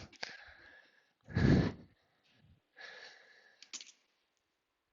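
A man breathing out and sighing in short puffs, the loudest about a second and a half in, with a brief click near the end.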